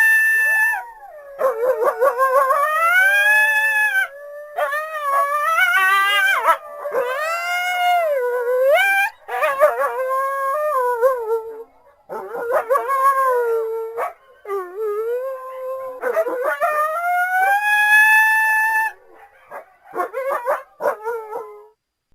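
Coyotes howling: long calls that glide up and down in pitch, several voices overlapping at times, breaking into short yips near the end.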